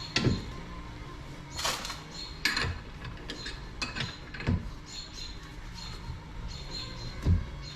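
Scattered metal clanks and knocks from hand tools and parts being handled while a dirt-bike frame's swingarm linkage is taken apart, about seven of them, the loudest near the end. Faint short high squeaks come in between.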